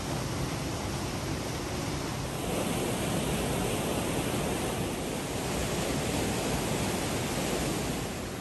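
Steady rush of water spilling over low river cascades. It grows louder about two seconds in.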